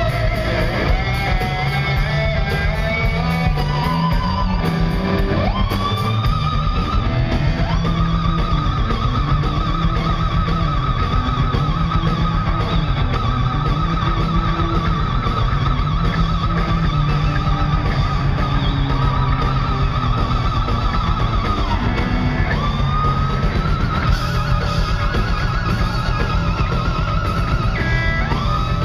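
Live rock band: an electric guitar plays a solo over bass guitar and drums. Twice, about 6 s in and again about 22 s in, the guitar bends up into a long held note with wide vibrato.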